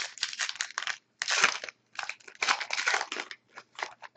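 Wrapper of a Panini Contenders hockey card pack being torn open and crinkled, in several rustling bursts. The loudest burst comes just over a second in, followed by scattered crackles.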